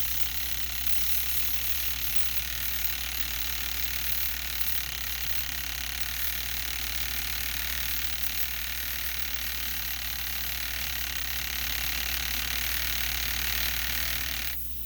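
Electric desoldering tool running with a steady whirring hiss and low hum as solder is heated off a relay's pins on a circuit board; it cuts off shortly before the end.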